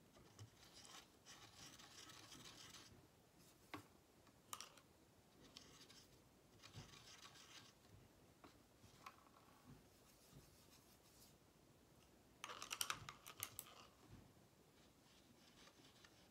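Faint scratching and rustling in three short spells, the loudest about three-quarters of the way through with a quick run of ticks, and a couple of light clicks in between.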